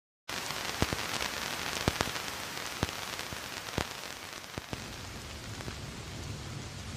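Steady hiss with irregular sharp clicks and crackles scattered through it, about one or two a second.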